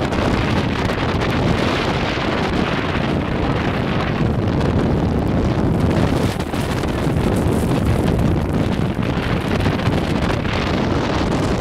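Loud rushing wind noise buffeting the microphone at the open window of a 4x4 pickup truck pushing through deep powder snow, with the truck's engine under it.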